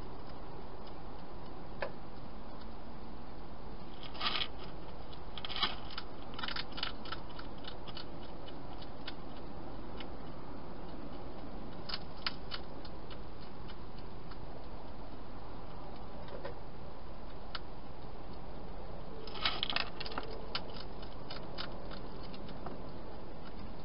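Wild hedgehog crunching dry food inside a plastic feeding box: a few bouts of rapid, crisp clicks and crunches, each lasting about a second or two, over a steady hiss.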